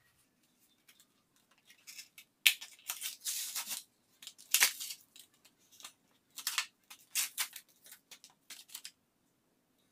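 Paper and cardboard packaging of a phone case being pulled apart and torn, then clear plastic handled: a string of sharp rustles and tears, loudest a couple of seconds in and again just under five seconds in.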